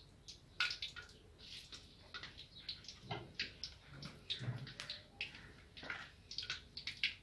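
Kababs frying in hot oil in an iron karahi: the oil sizzles with many short, irregular crackles and pops. A few low thuds come around three to four and a half seconds in, as another kabab goes into the oil.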